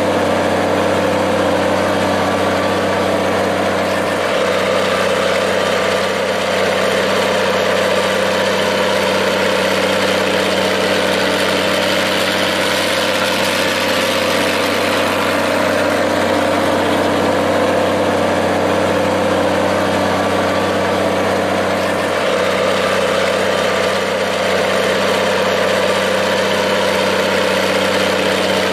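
Minneapolis-Moline G-1350 tractor's engine idling steadily.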